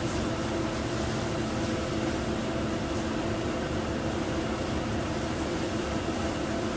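Jet dyeing machines running: a steady mechanical hum with a few held low tones over a constant hiss.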